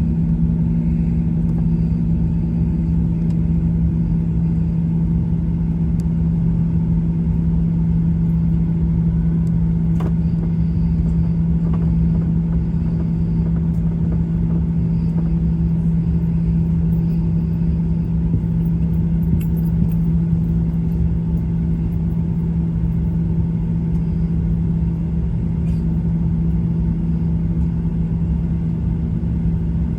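Boeing 737-800 heard from inside the passenger cabin: steady jet-engine drone and airframe rumble with a constant low hum.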